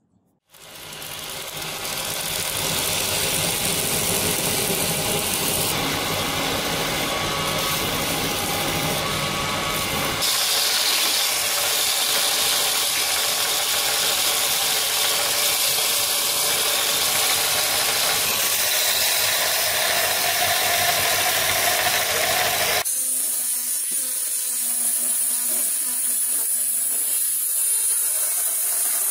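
Power tools grinding a metal sword crossguard. A belt sander runs with the rough piece pressed onto its belt, and the sound shifts abruptly about ten seconds in. From about 23 seconds, an angle grinder's spinning disc works the guard, which is clamped in a vise, with a steadier, higher whine.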